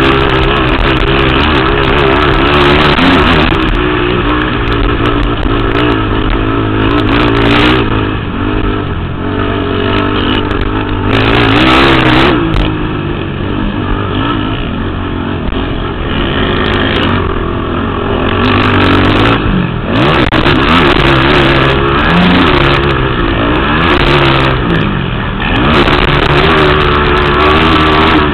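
Racing ATV engines revving and falling off continuously as quads ride a motocross track, more than one engine at once with pitch rising and dropping.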